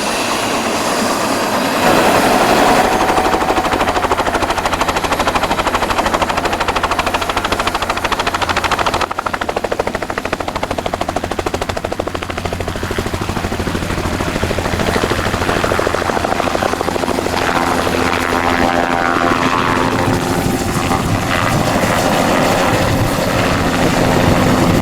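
Helicopter running, its rotor chopping in a fast, even beat, stepping up in loudness about two seconds in as it takes off.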